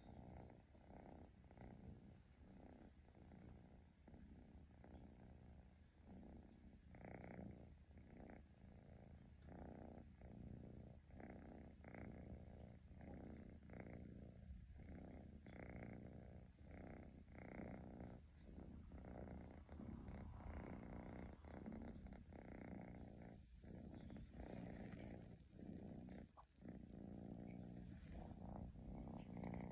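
Domestic cat purring softly and steadily, the purr pulsing with each breath about one and a half times a second.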